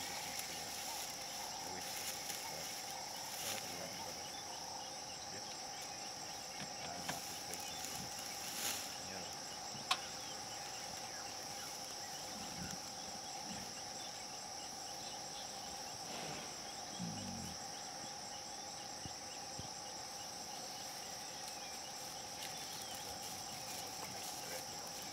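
Steady chorus of insects calling, with a constant high-pitched trill and a lower steady drone underneath. A single sharp click about ten seconds in.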